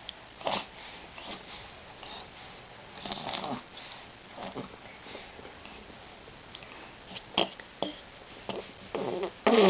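A baby making short breathy sniffs and grunts every second or two, then a longer voiced sound starting near the end.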